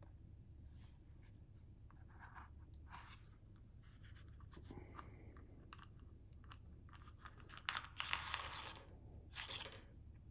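A paper pill bottle being handled: its kraft-paper cap scraping and rustling as it is slid off the tube, then gel capsules tipped out onto a marble countertop with a cluster of light taps and a louder rustle about eight seconds in.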